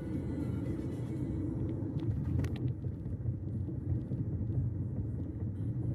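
Steady low machine rumble, with a few short clicks about two seconds in.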